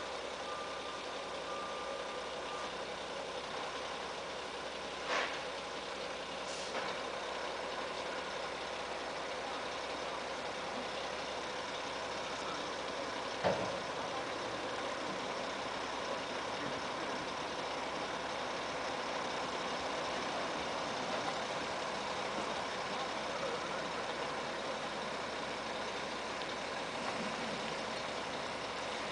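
Mack Granite dump truck's diesel engine running slowly and steadily as the truck backs in. Two brief sharp knocks stand out, about 5 and 13 seconds in.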